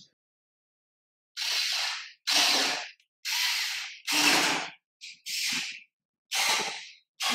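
Small cordless electric screwdriver whirring in short bursts, about seven of them, each under a second, as it drives screws into a metal shelf frame.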